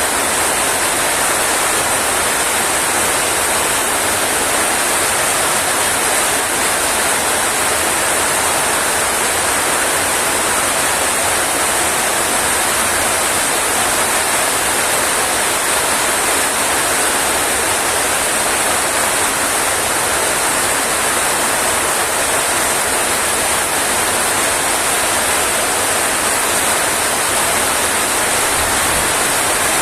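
Rain falling steadily: a dense, even hiss with no breaks or changes.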